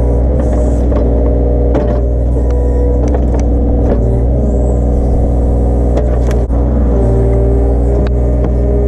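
Mini excavator's diesel engine running steadily under load, its tone shifting up and down as the machine works, with scattered short knocks and cracks as it digs at stumps.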